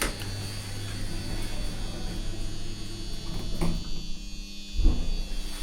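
Passenger lift humming with an electrical buzz as the car sets off downward. The low hum drops away a little before four seconds in, and there is a low thump near the end.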